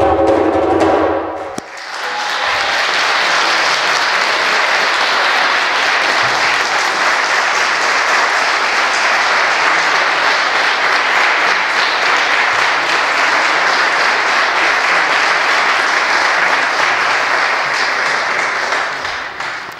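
Drum-backed music stops abruptly about a second and a half in, then an audience applauds steadily, fading away right at the end.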